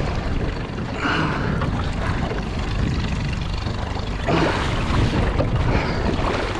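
Wind buffeting the microphone and water noise around a small boat at sea, a steady rough rush with louder surges about a second in and again past four seconds.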